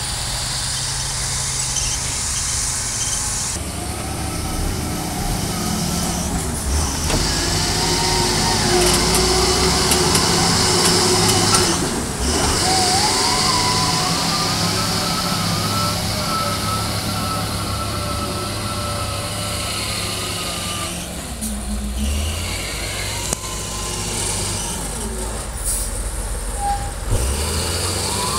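Wheel loader's diesel engine working under load as it scoops sand and lifts its bucket, its pitch rising and falling several times as it revs.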